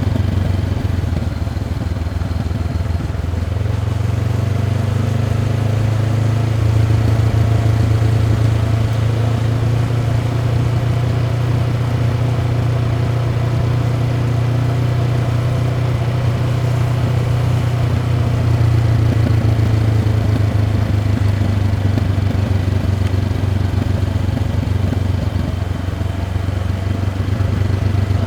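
Honda CB500X's 471 cc parallel-twin engine with its stock exhaust, running steadily under way. The note rises a little a few seconds in, holds, then eases slightly near the end.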